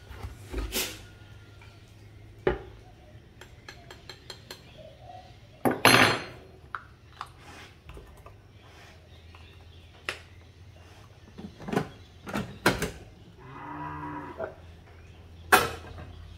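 Knocks and clatter of ground coffee being scooped from a plastic coffee can into a single-serve coffee cartridge, and a mug set on the counter, with the loudest clatter about six seconds in. Near the end a cow moos once, for about a second.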